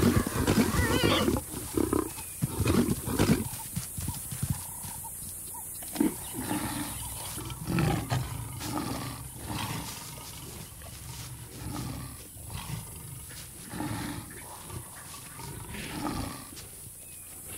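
Lions growling and snarling over a warthog kill. The first few seconds are loud and dense with growls, with a high wavering squeal from the warthog about a second in. After that the lionesses give lower growls every second or so as they feed together.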